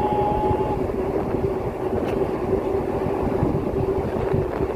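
Steady drone of a ship's engines and deck machinery with a constant hum, and wind buffeting the microphone. A held high tone cuts off under a second in.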